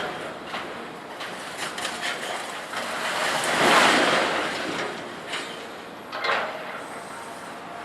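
Front loader handling scrap metal: repeated metal banging and clanking, with a long crashing swell about three to four seconds in, like a load of scrap dropped onto a pile, and another loud clatter near six seconds.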